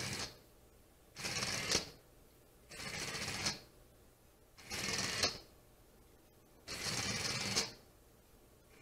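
Moorebot Scout robot's small drive motors and mecanum wheels running in short bursts as it is driven by joystick, about four bursts each under a second long, roughly one every two seconds.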